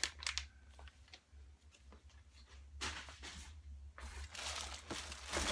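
Faint rustling and handling noise as boxed items and their packaging are moved about: a short rustle near the start, another about three seconds in, and more from about four seconds on, over a low steady hum.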